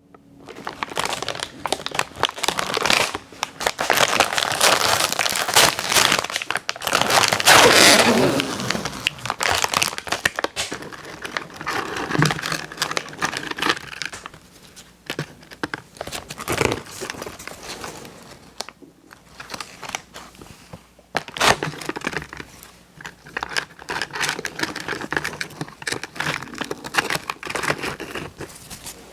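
Plastic cookie packaging being handled and opened: irregular crinkling and crackling, with some tearing, loudest in the first several seconds and coming in further bursts with quieter pauses between.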